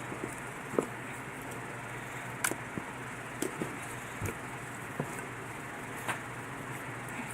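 Slime being mixed and squeezed, making irregular sticky clicks and small pops over a steady background hiss.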